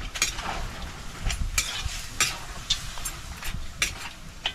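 Metal spoon scraping and clinking against a large iron wok as pieces of meat are stirred, about two strokes a second, with the meat sizzling in the hot pan over a wood fire.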